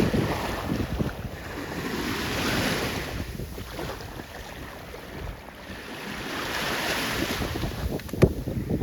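Sea waves washing onto the shore, swelling twice, with wind buffeting the microphone. A single sharp click near the end.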